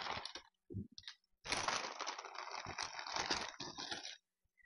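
Plastic bag of stiff corn tostada shells being opened and rummaged: crinkling plastic and the brittle shells clattering against each other, a few short rustles at first, then a dense crackling stretch of about three seconds.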